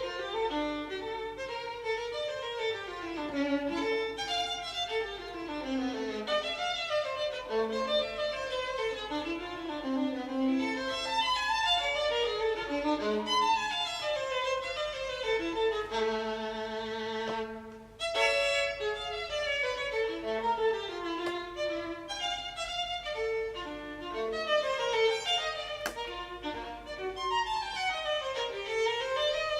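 Violin music: quick runs of notes, with one long wavering held note about two-thirds of the way through.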